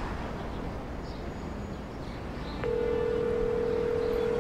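A low steady rumbling noise, then, about two-thirds of the way in, a steady electric hum tone starts and holds.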